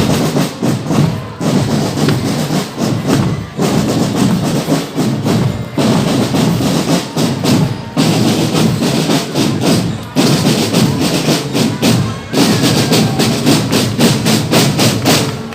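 A live percussion group playing loud, fast rhythmic music, with short breaks in the beat about every two seconds.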